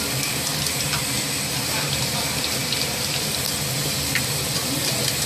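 Youtiao dough sticks deep-frying in a large pan of hot oil: a steady sizzle with small crackles throughout.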